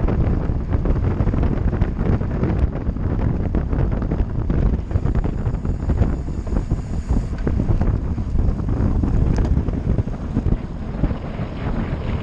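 Wind buffeting the microphone of a camera on a racing bicycle moving at speed: a low rumble that rises and falls without a break.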